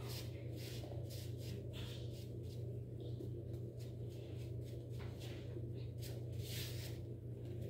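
Paper towel rubbed over the face in short strokes: a string of soft swishes over a steady low hum.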